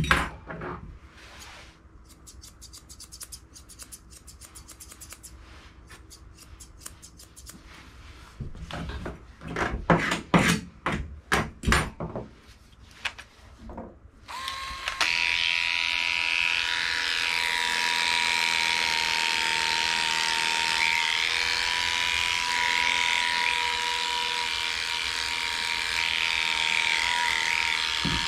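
Grooming tools handled on a table: light quick clicks, then several seconds of louder clattering. About halfway through, an electric dog grooming clipper switches on and runs with a steady hum.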